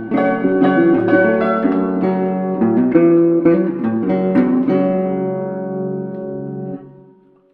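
Instrumental music of plucked guitar notes, ending on a held chord that rings and then fades out near the end.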